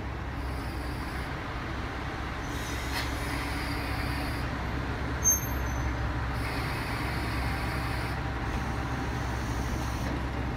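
Shimabara Railway 2500-series diesel railcar standing at the platform with its engine idling, a steady low rumble. About five seconds in there is one brief, sharp, high-pitched sound.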